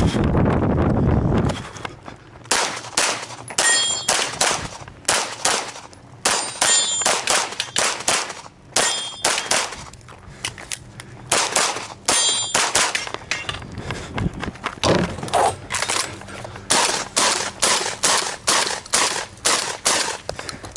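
Rapid strings of shots from a Glock 34 pistol, some of them followed by the ringing ding of steel targets being hit, then shotgun shots near the end.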